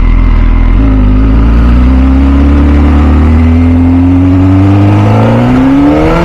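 A 2006 MV Agusta F4 CC's 1078 cc inline-four engine pulls away from a stop under throttle. The revs hold low for about a second, rise slowly, then climb faster near the end.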